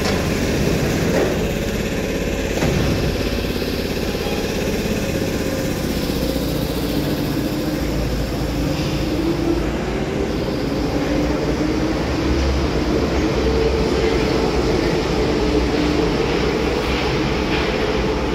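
Paris Métro MF77 train pulling out of the station: its traction motors whine in a tone that rises in pitch through the second half, over the steady rumble of wheels on the track. Near the end a second MF77 train begins to come in on the other track.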